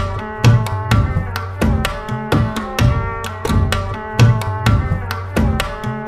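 Background music with a quick, steady drum beat over held melodic notes; it starts abruptly just before this.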